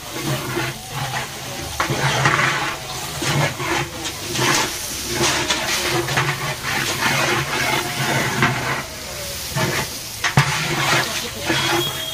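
Oil sizzling in a large aluminium cooking pot as whole dried red chillies and ground spices fry in it, with a metal spatula repeatedly scraping and stirring against the pot.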